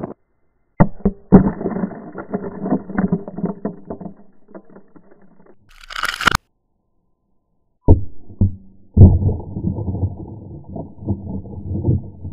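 A .308 rifle shot into a block of ice, replayed as slowed-down audio: deep, muffled booms and rumbling with the high end cut away, in several cuts separated by silences, with one short sharper full-range burst midway.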